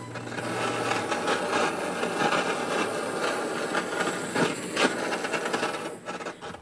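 Handheld butane blowtorch on a gas canister running with a steady hiss as it scorches the salami on the fish, with a couple of sharp pops about four and a half seconds in. The hiss cuts off near the end.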